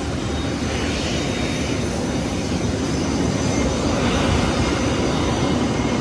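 Aircraft engine running steadily on the apron: an even rushing noise with faint steady high tones.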